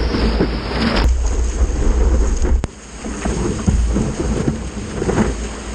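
Wind buffeting the microphone of a camera mounted on the nose of a stand-up paddleboard, over the rush and splash of whitewater as the board rides a choppy wave. A sharp click comes about two and a half seconds in.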